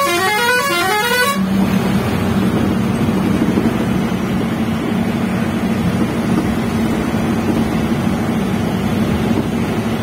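A multi-tone vehicle horn sounding a quick run of repeated rising notes, cutting off about a second and a half in. After it, the bus's steady engine drone and road noise are heard from inside the cabin.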